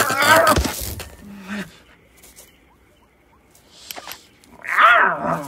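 A crackling electric zap over a creature's wavering yowl, then a second loud cry, falling in pitch, about five seconds in.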